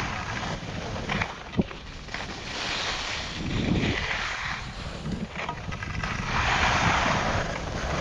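Skis carving turns down a snowy piste: the hiss of the edges scraping the snow swells with each turn, about three times, over wind buffeting the microphone.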